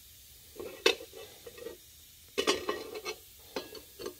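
Metal parts clinking and knocking together as they are handled: a flat metal plate set against a bent sheet-metal shell and shifted, in a few short bursts of sharp knocks.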